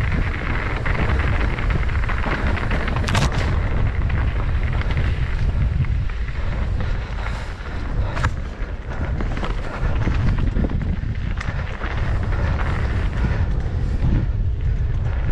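Wind buffeting a GoPro's microphone during a mountain-bike descent on a dirt singletrack, a steady heavy rumble mixed with the tyres and bike rattling over the rough trail. Sharp knocks about three seconds in and again about eight seconds in.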